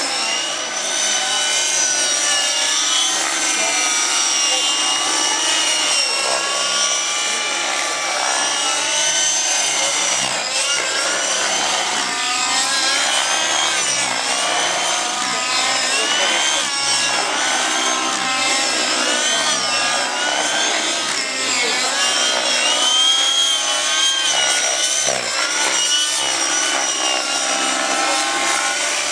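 Several radio-controlled model helicopters in flight, including nitro-engined ones: a high-pitched whine of engines and rotors whose pitch keeps rising and falling as they manoeuvre.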